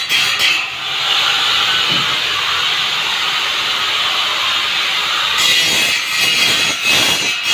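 Steady, harsh hissing noise of power tools working the steel of a water-jug rack, grinding or welding; its character changes about five seconds in.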